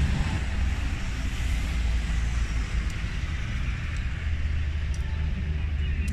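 Steady low rumble of street traffic, with an even hiss of outdoor noise over it.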